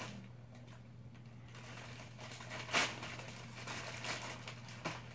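Plastic poly mailer bag crinkling and rustling as it is pulled open and handled, with a sharper, louder crackle about three seconds in.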